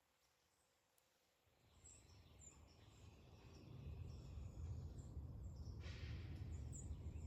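Faint bird chirps, a few short calls scattered through, over a low rumble that builds up from about two seconds in.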